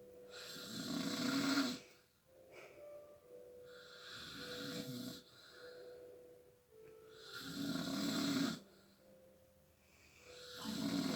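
Snoring in slow, regular breaths: four loud snores about three and a half seconds apart, the second one softer.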